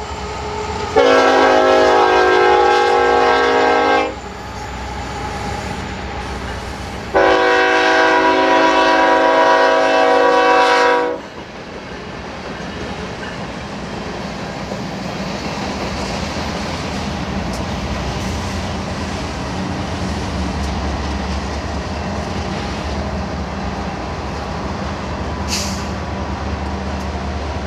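Diesel freight locomotive's air horn sounding two long blasts, the second about four seconds long, followed by the steady rumble of a passing freight train with a low engine hum, and one brief high squeal near the end.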